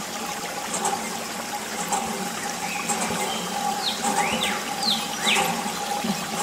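Water trickling and splashing from a clear plastic tube onto a sandy toy tractor, over a steady hum from a small water pump. A few short falling chirps sound in the background.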